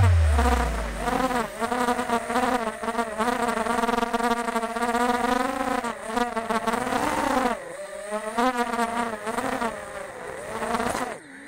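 FPV racing quadcopter's brushless motors whining, the buzzing pitch rising and falling constantly with the throttle through turns, then cutting off near the end.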